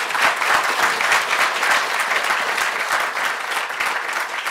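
An audience applauding: many hands clapping together in a dense, steady patter, easing slightly toward the end.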